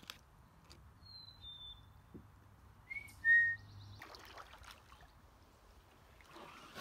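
A bird whistling clear two-note phrases, each a higher note dropping to a lower one; the second phrase comes about two seconds after the first, lower and louder.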